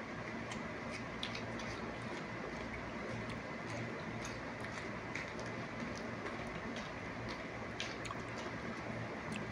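Faint, irregular clicks and smacks of two people eating a banana and a cucumber, over a steady room hum.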